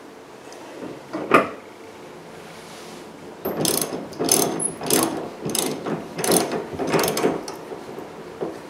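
Hand ratchet wrench tightening a bolt on a car's rear hatch: about six or seven quick ratcheting strokes in a row, the pawl clicking on each swing. A single sharp knock comes about a second in, before the ratcheting starts.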